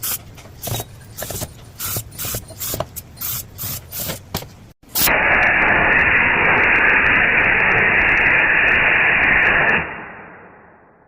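Freshly reamed valve guides in a cylinder head being cleaned out with spray: a quick series of short hissing blasts, then one long steady blast that tapers off near the end.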